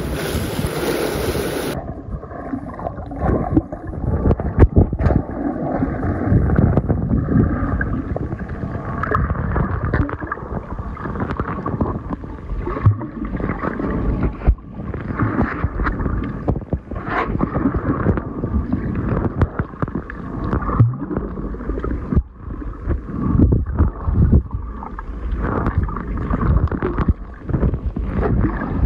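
Water sloshing and wind hiss at the surface for about the first two seconds, then muffled underwater sound: gurgling, churning water and frequent dull knocks against a submerged microphone.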